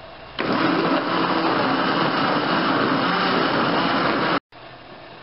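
Mondial countertop blender switched on about half a second in, its motor running steadily at high speed as it purees leafy greens, lemon and cucumber with water into juice, then stopping abruptly near the end.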